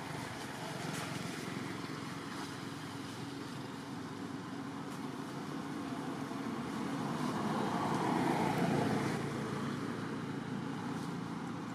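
Steady hum of a motor vehicle, swelling and fading again as it passes about seven to nine seconds in, with a few faint clicks.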